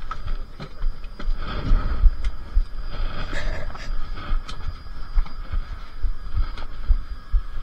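Irregular low thumps and knocks of footsteps and bags as people file through a train coach's vestibule to get off, with rumbling handling noise on the microphone and a faint steady high hum.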